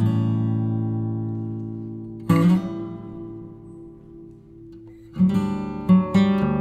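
Background music on acoustic guitar: strummed chords left to ring out, then quicker strumming from about five seconds in.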